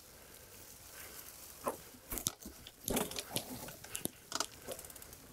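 Mountain bike tyres rolling over a dirt trail thick with fallen leaves: irregular crunching and crackling, with scattered clicks and knocks from the bike rattling over bumps, and a quick run of small ticks near the end.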